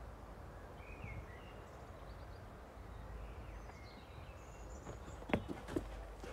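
Faint birds chirping in the background, then a few sharp knocks in quick succession near the end.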